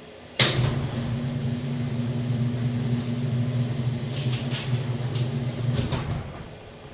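A mains-powered electric motor or machine switched on with a loud click, running with a steady low hum with a few sharp clicks near the end, then switched off about six seconds in.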